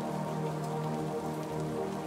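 Rain falling as an even hiss with faint scattered drops, over soft music of long held chords.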